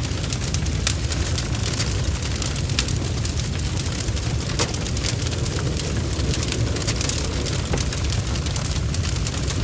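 Large barn fire burning: a steady low rumble of the blaze with irregular sharp crackles and spits.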